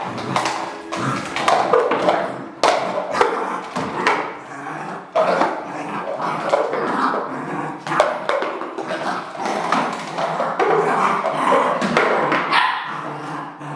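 Red merle border collie puppy barking repeatedly, in quick runs of barks, with a couple of sharp knocks among them.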